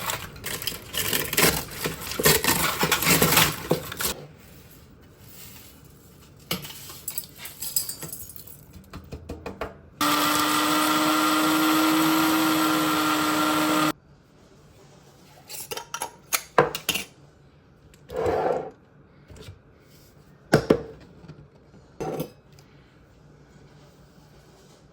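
Dry crunching and clattering of baked eggshells, then an electric blender runs steadily for about four seconds, pulverizing the shells to powder. A few scattered taps and knocks follow.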